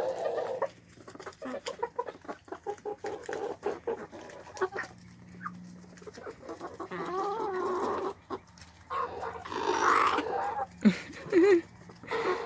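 Chickens and roosters feeding, with a run of quick sharp clicks for the first few seconds, then clucking and wavering squawky calls, the loudest about ten seconds in.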